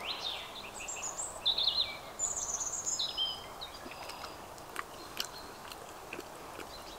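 Small birds chirping and trilling, several short high calls in the first half, over a steady faint outdoor hiss. A few faint light clicks follow in the second half.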